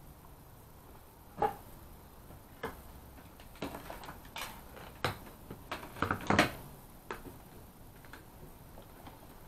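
Irregular clinks and crunches of broken pottery and ceramic debris underfoot. The loudest cluster comes about six seconds in.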